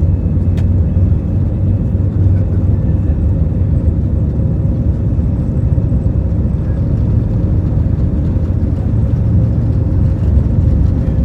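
Steady low rumble of an Airbus A320's engines and airflow heard from inside the passenger cabin, with a faint steady tone running through it. A small click comes about half a second in.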